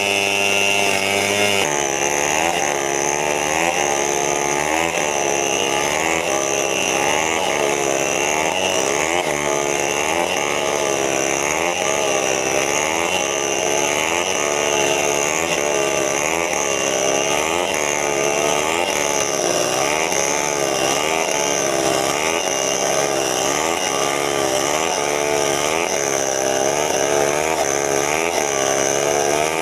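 Chainsaw running at high revs, then cutting wood from about two seconds in: its pitch dips and recovers about once a second as the chain bites into the wood and is eased off.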